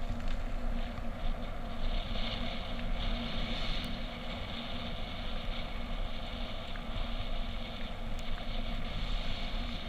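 A steady engine drone with a low hum and wind noise, as heard on board a moving vehicle.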